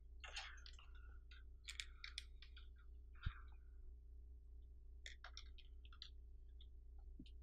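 Faint, scattered clicks and rustles of a PTFE tube being worked by hand down inside braided cable sleeving, with one sharper tick about three seconds in, over a low steady hum.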